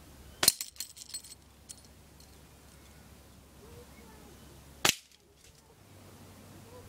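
.177 air rifle fired twice, about four and a half seconds apart, each a sharp crack. After the first shot comes a quick run of clicks with a thin metallic ringing that lasts about a second.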